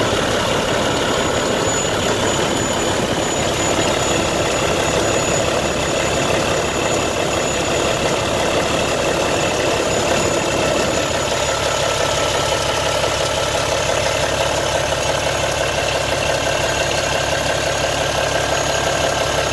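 2013 Peterbilt 367 dump truck's diesel engine idling steadily, heard up close with the hood open.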